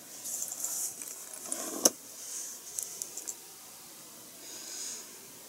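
Small plastic parts of a scale model-car engine being handled on a work desk: light rustling and scattered clicks, with one sharper click about two seconds in.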